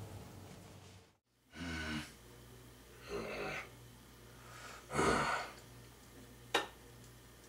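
A person taking three loud, harsh breaths or gasps, a second or more apart, followed near the end by a single sharp click.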